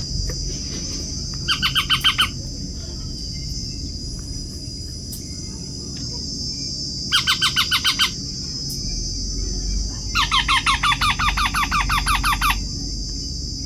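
Parrot chicks calling in three bursts of rapid, evenly repeated squawks, about eight a second, the last running for over two seconds, over a steady high buzz.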